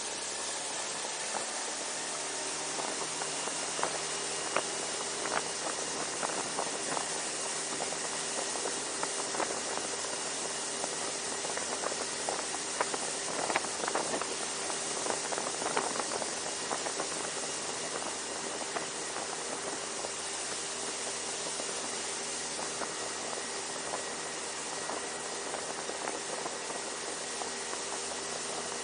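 A small boat's motor running steadily under way, mostly buried under a loud rushing hiss of wind and water. Short knocks come and go through the middle stretch.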